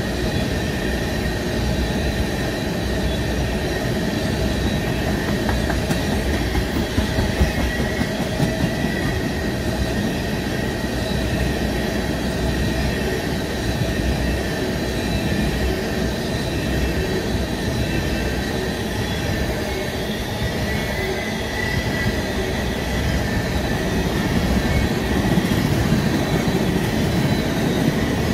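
Freight train tank cars rolling past: a steady rumble of steel wheels on the rails, with a thin high-pitched wheel squeal over it, a little louder near the end.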